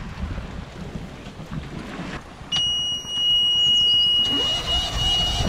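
Wind and water noise from a sailboat under way, then about halfway through a loud, steady, high-pitched electronic alarm tone comes on and holds.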